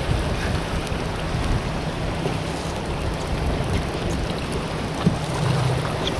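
Steady wind and water noise, with a low rumble of wind buffeting the microphone.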